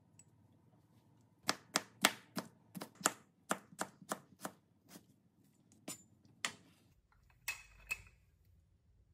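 Kitchen knife chopping vegetables on a cutting board: a quick run of about a dozen chops, roughly three a second, that stops after a few seconds, then two more chops near the end.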